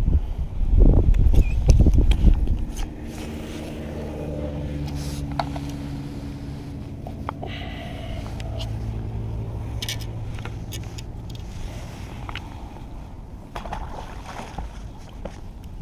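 A low buffeting rumble on the microphone for the first couple of seconds, then a steady low engine hum that fades out near the end. Small clicks and scrapes of hands handling a fish and a soft-plastic lure run throughout.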